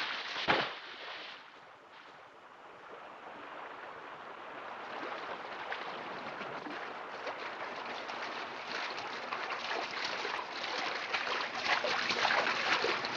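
A diver hits the water with a splash, then several swimmers splash their way across a river with arm strokes. The splashing grows louder toward the end.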